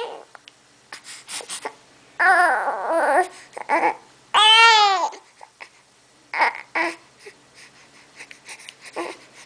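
A baby fussing and crying in short, high-pitched wails, with babbling sounds between them. A longer cry comes about two seconds in and a louder one about four and a half seconds in, then a few brief fussy sounds.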